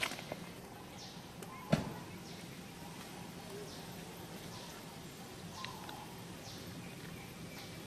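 Steady outdoor background with faint short high chirps repeating about once a second, and one sharp knock a little under two seconds in.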